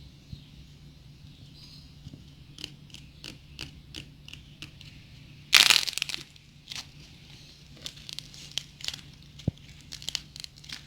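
Dried cracking clay being pressed and broken by hand, giving scattered small crackles, one louder crunching tear about halfway through, and a quicker run of crackles near the end.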